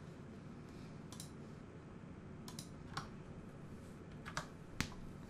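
Scattered clicks of a computer mouse and keyboard, about seven short sharp clicks at irregular intervals, the sharpest one near the end, over a faint steady background hiss.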